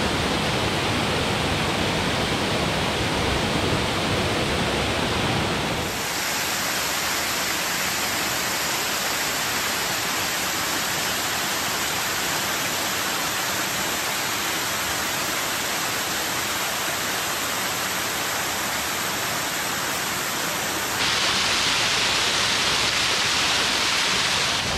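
Water rushing steadily down a wide waterfall that cascades over many thin layers of rock. The sound changes abruptly about six seconds in, then turns brighter and louder near the end.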